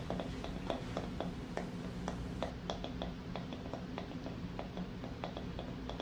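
A hairbrush drawn through hair close to the microphone, its bristles making many small irregular crackles and ticks, over a steady low hum.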